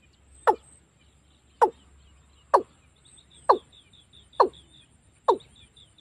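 Watercock calling: a regular run of short, loud notes, each falling steeply in pitch, about one a second, six in the stretch. Faint high chirps sound between the calls.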